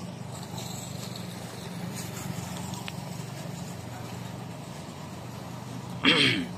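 Steady low hum of an idling engine. About six seconds in, a brief loud sound falling in pitch cuts across it.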